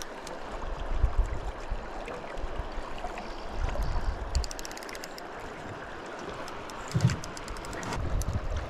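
River water lapping and rushing against a drift boat's hull, with wind buffeting the microphone in gusts, loudest about a second in and again near the end. Short runs of light, quick ticking come and go over it.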